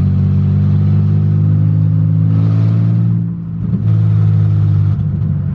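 Nissan 350Z's engine running loud and steady, heard from inside the cabin while the car is driven. About three and a half seconds in, the engine briefly drops, then comes back to the same steady note.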